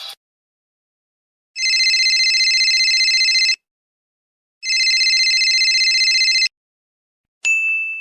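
Telephone ringing twice, each ring about two seconds long with a fast warble, a second apart. Near the end a single bright ding sounds and rings on, fading.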